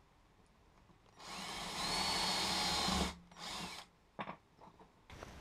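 Hand-held power drill with a 4.5 mm bit boring through a small wooden handle: the motor whines up and runs for about two seconds, then gives a second short burst. A light knock follows.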